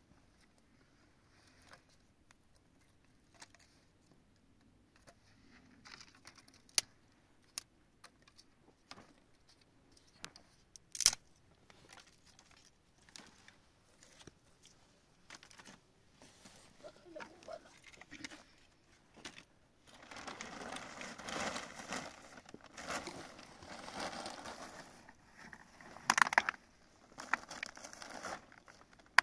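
Small handling noises: scattered clicks and taps, then about nine seconds of rustling and scraping with a louder burst near the end.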